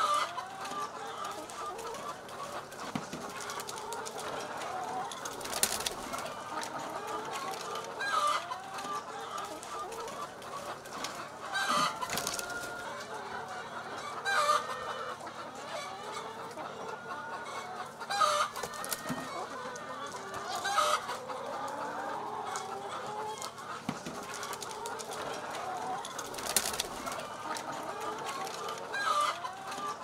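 A large flock of hens in a poultry house clucking all together in a steady chatter, with a louder call rising out of it every few seconds.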